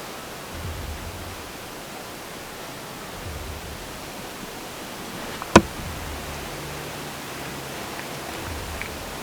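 Steady outdoor hiss of wind, with low rumbles of wind buffeting the microphone now and then, and one sharp click about five and a half seconds in.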